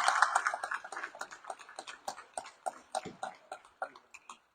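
Audience applause dying away: dense clapping thins out within the first second into scattered single claps that fade and stop about four seconds in.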